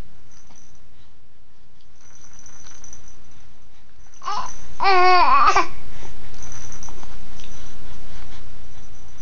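A single high-pitched vocal sound with a wavering pitch, about a second and a half long, a little before the middle, set against faint rustling.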